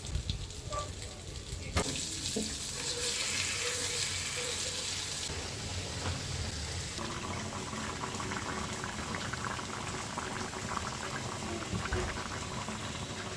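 Food cooking in a pot or pan on the stove, bubbling and sizzling with a steady fine crackle. A click about two seconds in is followed by a louder hiss that lasts a few seconds.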